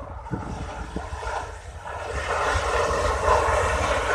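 Jet engine noise of a Boeing 787-9 airliner as it lands, a steady rush that grows louder about halfway through, over a low wind rumble on the microphone.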